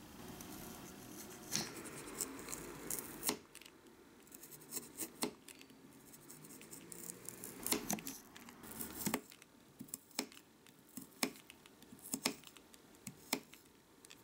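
A tiny kitchen knife cutting a small carrot on a miniature wooden cutting board: irregular sharp taps as the blade goes through the carrot onto the board, some single and some in quick runs.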